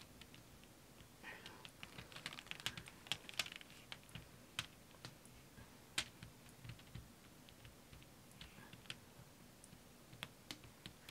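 Faint, scattered clicks and light taps from a wet, paint-covered stretched canvas being handled and tilted in gloved hands: a quick flurry starting about a second in, then only a few isolated ticks.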